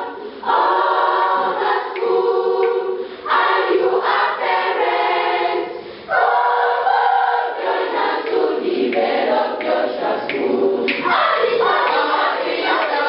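School choir of children singing a greeting song unaccompanied, in phrases with short breaks between them.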